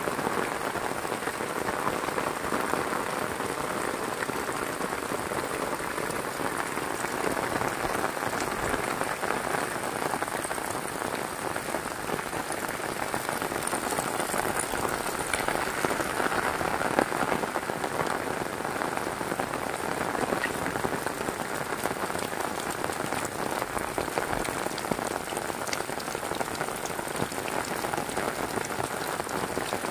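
Heavy rain falling steadily: a dense, even hiss of downpour with scattered individual drop taps.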